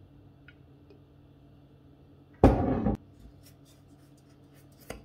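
Wooden spoon stirring dry flour and semolina in a stainless steel bowl, making faint short scratches. About two and a half seconds in there is one loud noise that lasts about half a second.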